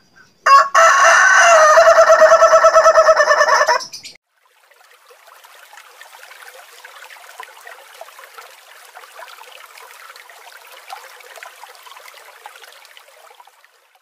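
Rooster crowing: one long, loud crow of about three seconds. It is followed by a faint, even noise that lasts for most of the remaining time.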